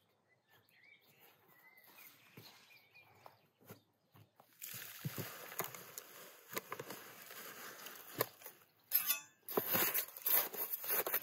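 Wet concrete sliding and slopping out of a tipped galvanized metal bucket into a gap between stones, with gritty scraping. Near the end come louder scrapes and knocks as the mix is pushed in with a trowel and the bucket scrapes against the stones.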